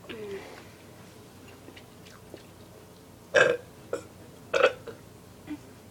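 A girl burping, the burps brought up by gulped Mountain Dew: a soft one falling in pitch right at the start, then two short, loud ones about a second apart, three and a half seconds in.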